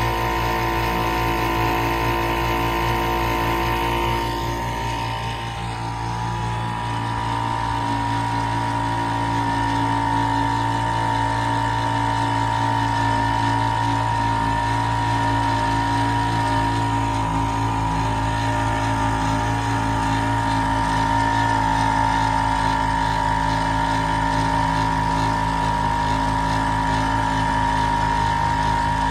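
1948 Evinrude Sportsman 1.5 hp single-cylinder two-stroke outboard running steadily under way, pushing the boat. The sound dips briefly and shifts about five seconds in, then runs on evenly.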